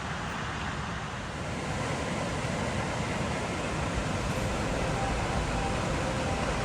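Steady rush of cascading creek water, growing a little louder about a second and a half in.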